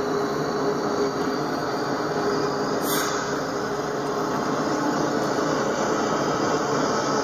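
Diesel-electric freight locomotives of an intermodal train passing, a steady rumble of engines and rails with a faint steady tone; a brief tick about three seconds in.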